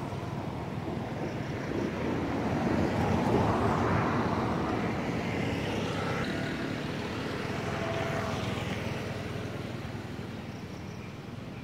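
A motor vehicle passing by: its engine and tyre noise swell to a peak about three to four seconds in and then fade, with a smaller swell near eight seconds.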